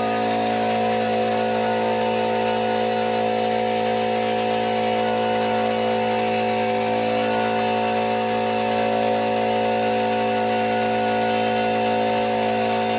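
Sandblasting cabinet in use on small brass drum-strainer parts: a steady blasting hiss over a constant motor hum.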